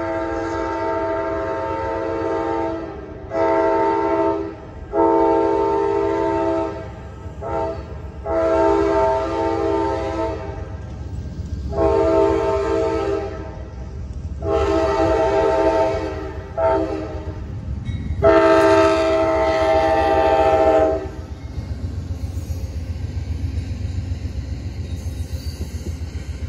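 An Amtrak passenger train's multi-chime air horn sounds about nine long and short blasts for the grade crossing, the last one long. About 21 seconds in, the horn gives way to the steady rumble and rapid clatter of the train rolling through the crossing.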